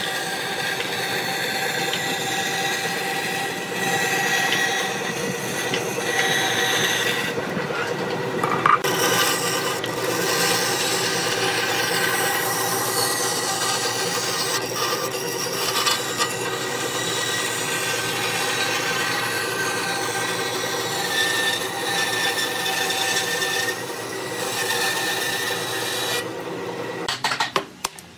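Band saw cutting a curved line through a wooden board: the blade hisses through the wood over the saw's steady motor hum. The sound dips briefly about a third of the way in and again near the end.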